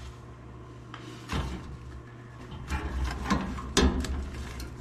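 Handling noise: a few scattered knocks and clicks over a low rumble.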